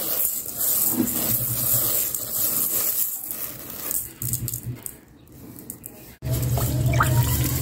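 Dry uncooked rice grains rustling and rattling as a hand stirs them and lets them fall back into a metal pot, a hissing rustle that quietens after about four seconds. About six seconds in it cuts to a steady low hum with water running.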